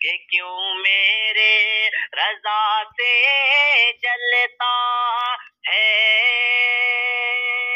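A singer's voice performing an Urdu devotional song (manqabat): a run of short, bending sung phrases, then a long held note from about six seconds in.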